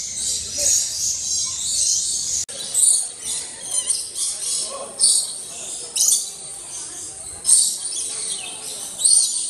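Many small birds chirping together in a dense, high-pitched chatter.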